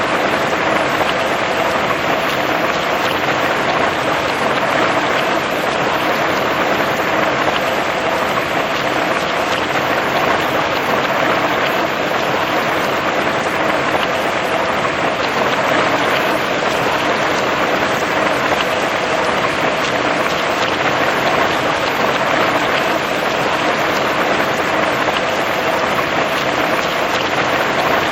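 Steady rain falling, an even, unbroken hiss with a faint steady tone underneath.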